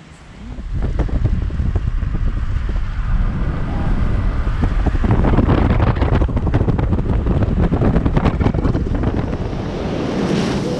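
Wind buffeting the microphone in heavy, uneven gusts, with the rushing of surf, louder from about four seconds in.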